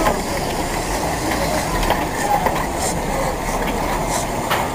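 Darjeeling Himalayan Railway narrow-gauge steam locomotive No. 788 running with its train: a steady, dense rattle with scattered clicks from the wheels and running gear.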